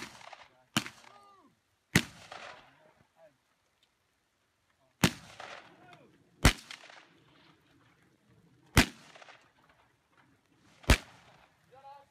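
Single gunshots on an outdoor range, seven in all, spaced irregularly one to three seconds apart, each followed by a short echo.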